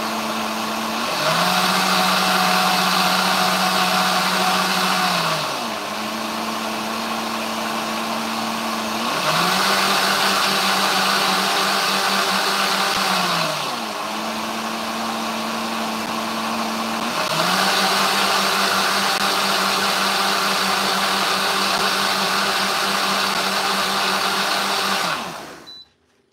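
Countertop blender running, blending canned peaches and yogurt into a purée. Its motor settles lower and louder in three long stretches, easing back up between them, then switches off shortly before the end.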